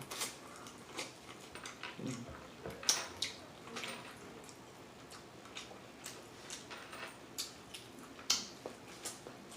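Close-miked mouth sounds of someone chewing a bite of chicken wing dipped in ranch: irregular wet smacks and clicks of the lips and mouth, a few of them louder.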